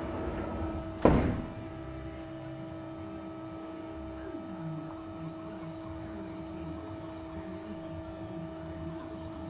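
A single loud thunk about a second in, then the steady electrical hum of an idling CNC lathe, with a faint high hiss in two spells later on.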